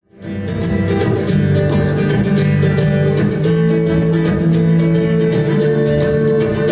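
Nylon-string guitar playing a fast flamenco-style piece: rapid plucked notes over ringing bass notes, coming in within the first fraction of a second.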